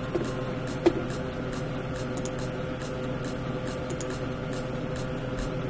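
Steady electrical hum with faint even ticking, and two short clicks about a second in.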